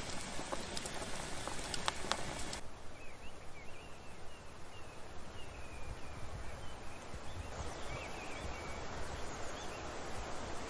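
Outdoor ambience with a steady hiss and low rumble. A few light clicks of cutlery on dishes come in the first couple of seconds, and small birds chirp in short, quick calls through the middle.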